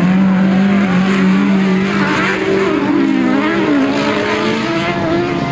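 Autocross race car engines revving hard, their pitch rising and falling as the cars slide around a dirt corner, over a steady lower hum that stops about four and a half seconds in.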